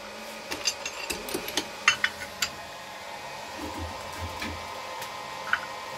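Metal clinks and clicks of a wrench working the top-mount nut of a front suspension strut held in a spring compressor, a quick irregular run in the first couple of seconds and a few softer knocks later. A steady hum underlies it.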